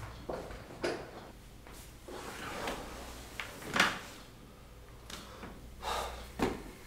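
A few separate knocks and clunks of household movement, like drawers or cupboards being shut, with soft rustling between them; the loudest knock comes about four seconds in.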